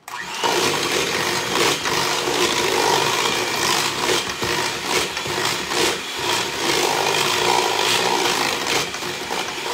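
Electric hand mixer switching on just after the start and running at a steady speed, its beaters churning thick pumpkin batter in a stainless steel bowl as an egg is beaten in.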